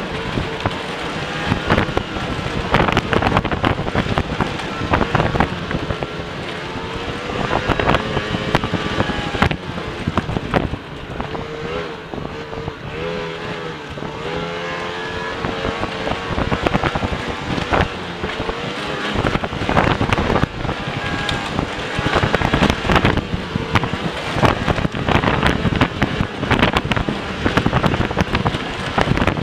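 Racing snowmobile's engine running at speed on a bare dirt trail with no snow, its pitch rising and falling with the throttle. Frequent knocks and rattles come from the sled hitting bumps.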